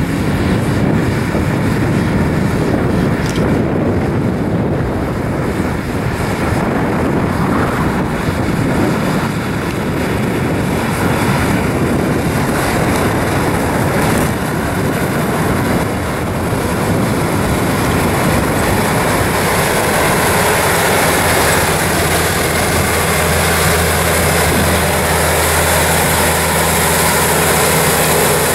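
Versatile 290 tractor's diesel engine running steadily under load, pulling a Sunflower disk through corn stalks, heard over a broad rushing noise. In the last third the engine's steady hum comes through clearly and the hiss grows as the tractor comes close.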